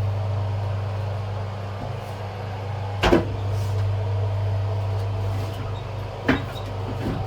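Tyre-changing machine motor running with a steady low hum while a new tyre is mounted on the wheel, with two sharp clunks, about three seconds in and about six seconds in.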